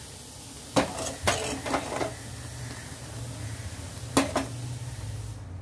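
Metal ladle knocking and scraping against a metal pot while stirring thick boiled milk: a quick run of clinks about a second in and two more near the end, over a low steady hum.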